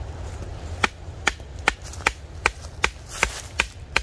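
Wooden baton knocking on the spine of a kukri to drive the blade through a piece of firewood. Sharp knocks start about a second in and come about two and a half times a second, nine in all.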